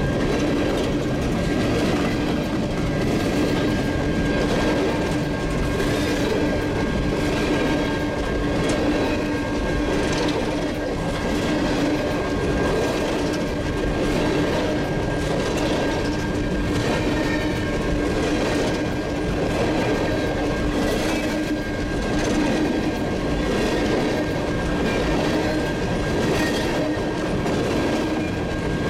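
Empty coal cars of a freight train rolling past at speed: a steady rumble of steel wheels on rail with repeated clicking over the rail joints and a faint steady ringing tone.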